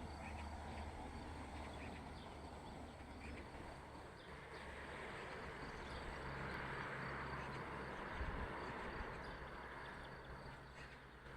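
Faint, steady rushing outdoor background noise with a low hum underneath and thin, steady high-pitched tones, like distant insects.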